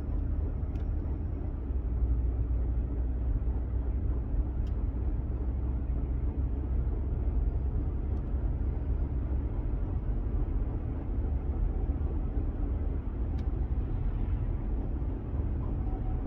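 2012 BMW F11 5 Series Touring being driven at low speed: a steady low rumble of running gear and road noise, with a few faint clicks. The owner reports a weird noise from the front centre of the car at lower speeds.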